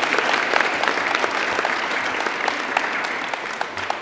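Audience applauding: dense, even clapping that eases slightly toward the end.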